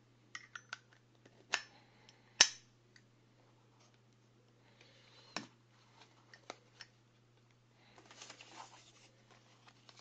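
Brass Zippo Armor lighter handled over its box: a run of small metal clicks, then one loud clack with a short metallic ring about two and a half seconds in, as the hinged lid snaps shut. Further clicks follow as it is set into the foam insert, then foam and cardboard rustle near the end.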